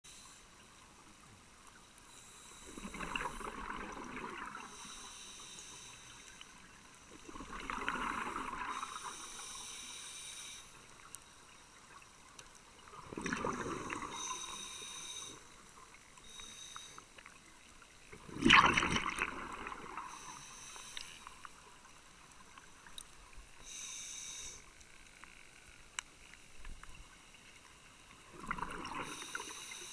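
Scuba diver breathing through a regulator underwater: a bubbling rush of exhaled air about every five seconds, the fourth the loudest, with a thinner high hiss of the regulator on each inhale between them.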